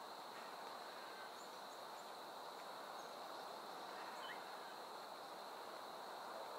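Quiet woodland ambience: a steady high-pitched insect drone over an even hiss, with a few faint short chirps.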